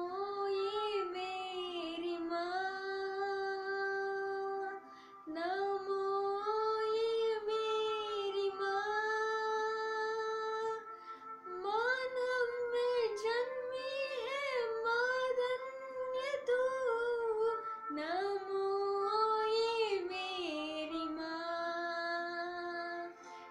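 A solo female voice singing a Hindi devotional hymn to Mary. She holds long, wavering notes in four phrases with short breaks between them, and stops near the end.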